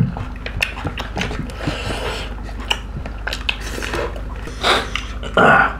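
Close-miked mukbang eating sounds: chewing with many short sharp clicks and smacks, and fingers mixing rice against ceramic plates. A couple of louder noisy bursts come near the end.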